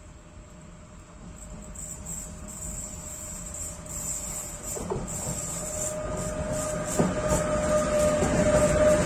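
Class 253 Bombardier TRAXX electric locomotive hauling a container freight train, approaching and growing steadily louder as it comes close. A steady whine builds in its second half, with a couple of sharp clicks from the wheels on the rails.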